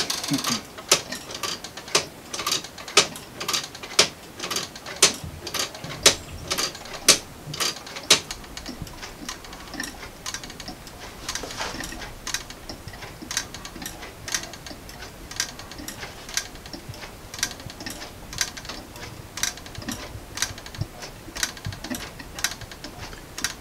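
Weight-driven 3D-printed plastic clock with a Galileo escapement, ticking steadily at about two clicks a second, every other click louder. The ticks turn softer after about eight seconds.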